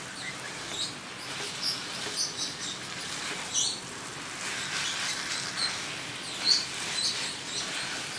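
Spatula scraping and squeaking against a nonstick wok as chicken coated in spice paste and grated coconut is stirred and turned, over a soft steady sizzle of the mixture braising in its own juices. The sharpest scrape comes about six and a half seconds in.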